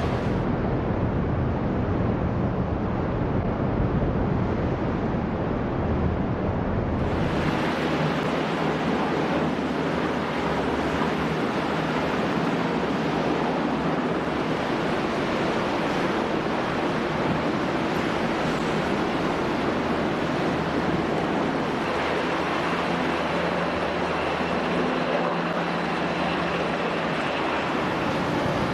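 Steady rushing noise of sea water churning between two ships running close alongside, with wind buffeting the microphone. The sound shifts slightly about seven seconds in.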